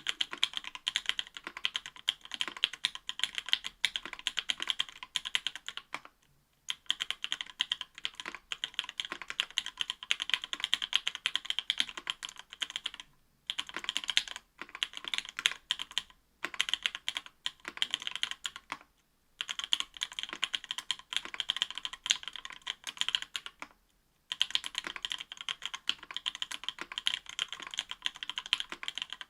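Fast typing on a mechanical keyboard: an Octagon V3 with an aluminum plate, stock (unlubed) C³ Equalz x TKC Tangerine 67g linear switches and GMK Olivia++ keycaps. It is a dense run of keystrokes in bursts, broken by several brief pauses.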